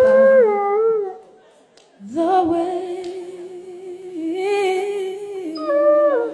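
A dog howling along with a man singing a slow ballad: a few wavering, stepping notes, a short pause, then one long held note.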